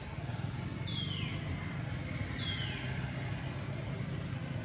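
Steady low drone of a running vehicle engine, with two short high calls, each sliding downward, about a second and a half apart.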